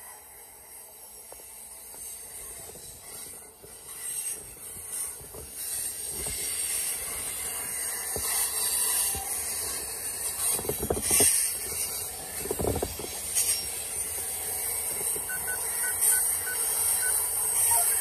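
Freight train of tank cars rolling past, steel wheels running on the rails with a steady high hiss. It grows louder about four seconds in, with a few heavier knocks past the middle.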